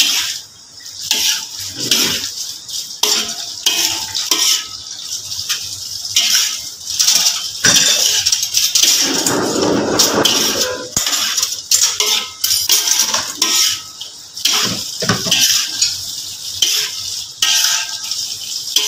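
A metal spatula scraping and clanking against a wok as vegetables are stir-fried, over a steady sizzle of frying.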